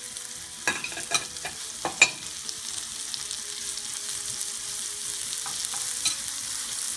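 Mushrooms frying in butter in a pan: a steady sizzle that grows a little louder, with about five sharp clinks of a utensil stirring against the pan in the first two seconds.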